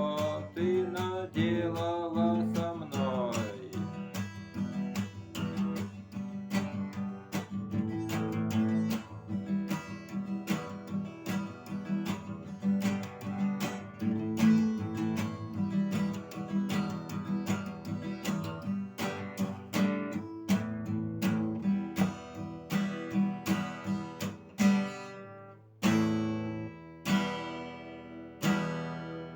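Acoustic guitar strummed in a steady rhythm through the song's instrumental break, with a falling melodic line in the first few seconds. Near the end the strumming gives way to a few single chords left to ring.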